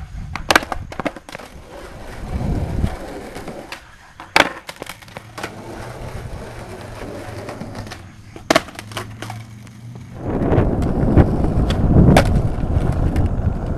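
Skateboard being ridden and flipped on asphalt: several sharp pops and board-on-pavement slaps from tricks, over the rumble of wheels rolling. The rolling grows louder and steady from about ten seconds in.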